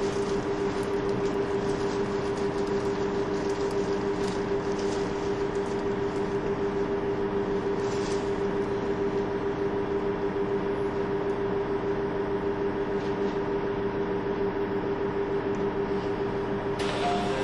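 Onboard sound of a KiHa 25 diesel railcar: a steady engine and running drone holding a constant pitch, with a few faint clicks. Near the end there is a brief rush of higher noise.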